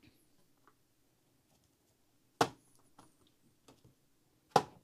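Two sharp plastic clicks about two seconds apart, with a few faint taps between, from stamping tools and an ink pad being handled on a desk.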